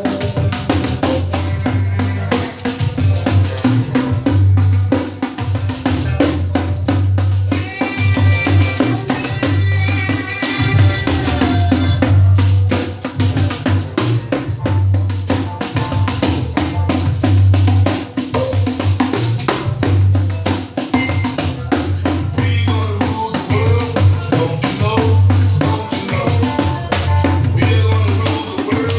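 Pandeiro with an old 12-inch nylon head played in quick, steady strokes with jingle shimmer, along to a recorded song with a pulsing bass line.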